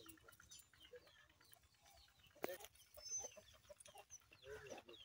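Faint clucking of chickens roaming a yard, with one sharp click about two and a half seconds in.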